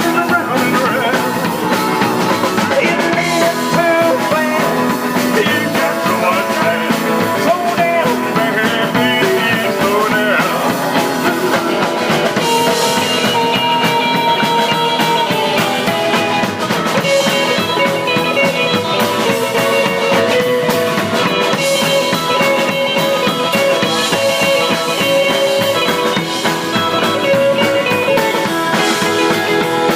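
Live rock band playing continuously, with drum kit and guitar.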